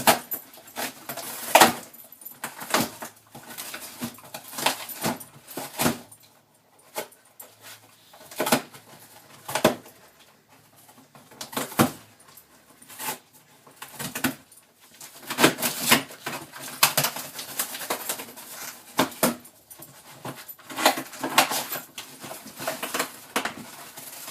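A dog pawing, scratching and tearing at a cardboard shoebox to get the shoes out, with irregular rustling, scraping and ripping strokes.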